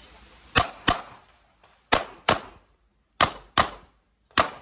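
Pistol-caliber carbine firing double taps: three quick pairs of shots about a third of a second apart, a new pair every second and a bit, then the first shot of a fourth pair near the end.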